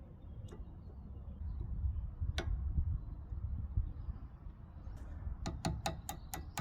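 Sharp metallic clicks: two single clicks, then, about five and a half seconds in, a quick even run of clicks at about five a second, over a low rumble.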